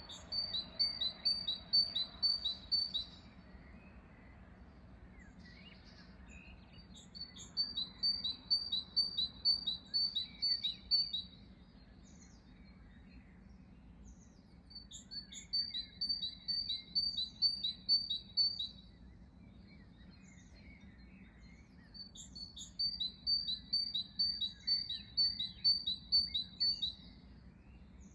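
A songbird singing the same phrase of rapid high chirps four times, each phrase about three notes a second for three to four seconds, with pauses between. Fainter calls from other birds sound in the gaps.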